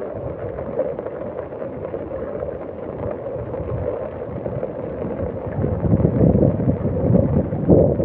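Rushing floodwater, with wind buffeting the microphone; the rumble swells louder about five and a half seconds in.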